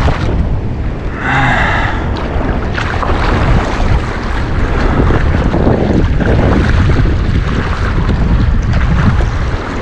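Wind buffeting the microphone, a loud, gusting low rumble throughout. About a second in, a short pitched sound rises above it for under a second.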